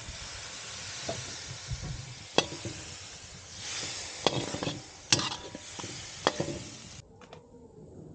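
Food sizzling as it fries in a pan, stirred with a spoon that knocks and scrapes sharply against the pan four or five times. The sizzle cuts off suddenly about seven seconds in.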